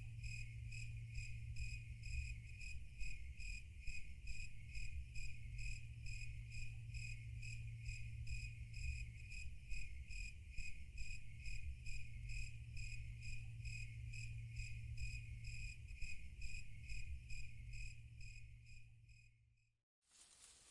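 Crickets chirping in a steady, even pulse of a few chirps a second, over a low steady hum. The chirping fades out and stops shortly before the end.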